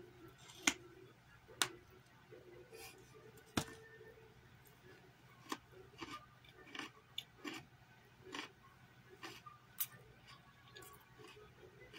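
Someone biting and chewing a raw carrot: irregular crisp crunches and clicks, a few louder ones in the first four seconds, over a faint steady hum.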